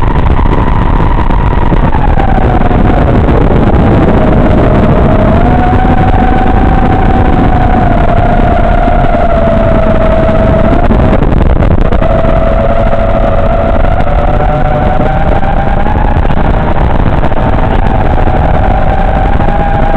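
FPV drone's motors whining, the pitch rising and falling with the throttle, over a loud low rush of air noise. The whine briefly cuts out near the middle, then returns.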